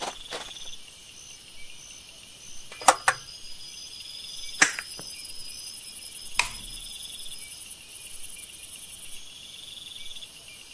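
Crickets chirping, a steady, high-pitched, finely pulsing trill with several overlapping voices, broken by a few sharp clicks about three, four and a half and six and a half seconds in.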